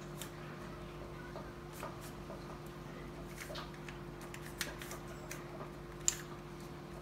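3x3 Rubik's cube being turned by hand, its plastic layers making scattered light clicks, the sharpest about six seconds in, over a steady low hum.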